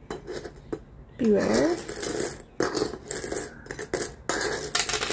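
Small plastic charms clattering and scraping against a mini metal wok as they are stirred with a metal spatula: a dense, irregular run of clinks and rattles.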